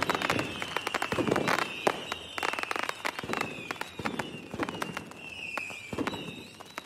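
Fireworks display: rapid crackling bangs and pops with high whistles sliding down in pitch, fading toward the end.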